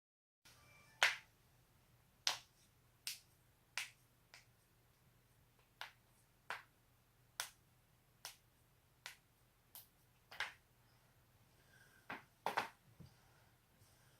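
Neck joints cracking: a series of about fifteen sharp pops at irregular intervals, with a quick cluster of three or four near the end.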